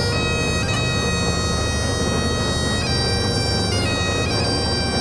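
Bagpipe music with held drone-like tones that step to new notes a few times, over the steady low rumble of the fishing boat's engine.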